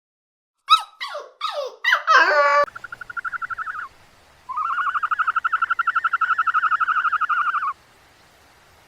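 Animal calls: four short whimpering cries that each fall in pitch, then two high, rapidly pulsed trills, the second lasting about three seconds.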